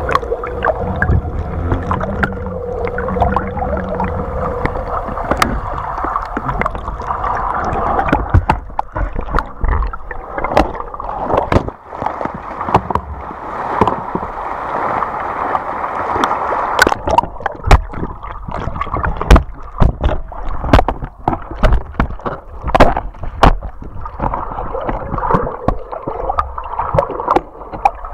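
Water rushing and gurgling against a camera held in or just under the sea surface, muffled, with many sharp knocks and clicks scattered throughout.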